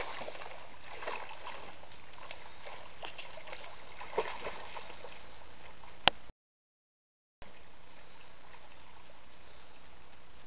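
Dogs paddling in lake water: faint small splashes and sloshing over a steady hiss. A sharp click about six seconds in is followed by about a second of complete silence, then the steady hiss resumes.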